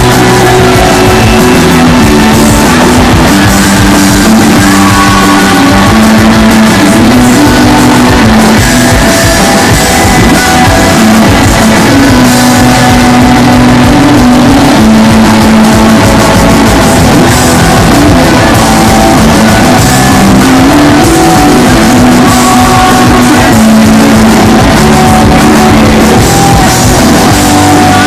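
Live rock band playing loud and without a break: electric guitar over drums, recorded from the audience.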